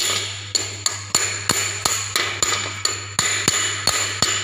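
Chipping hammer tapping slag off a freshly welded arc-weld bead on a steel lap joint: sharp metallic strikes about three a second, each ringing briefly, over a steady low hum.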